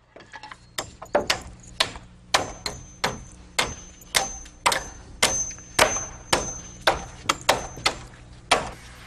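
A hammer driving nails into a wooden board and rafters overhead: quick blows, about two to three a second, with a high ring through the middle.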